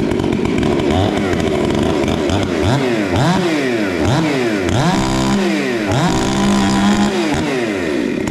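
Stihl MS 880 two-stroke chainsaw running, revved up and down over and over, its muffler opened up at the factory port with an extra hole cut in the side.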